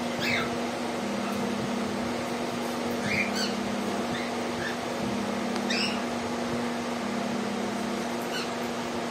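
Aviary parrots giving several short, high chirps a few seconds apart. Under them runs a steady low hum, with a lower tone that switches on and off about once a second.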